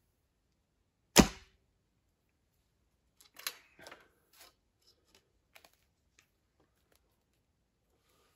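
A traditional bow shot with a thumb-ring release: one sharp crack about a second in as the string is loosed and the arrow flies. A few quieter clicks and rustles of handling follow.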